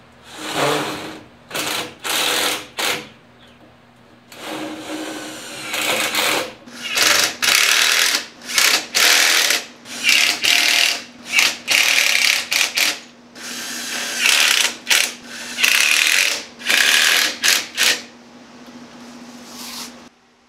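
Cordless drill driving screws to fasten caster wheels onto wooden boards: about twenty short whirring bursts, the motor speeding up and stopping again each time.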